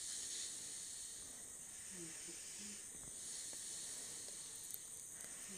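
Faint, steady sizzling of scrambled egg and chopped vegetables frying in oil in a pan as they are stirred together with a spatula.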